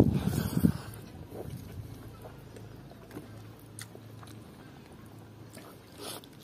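A person chewing a mouthful of pork and rice, loudest and wettest in the first second, then quieter chewing with small clicks of the mouth and fingers.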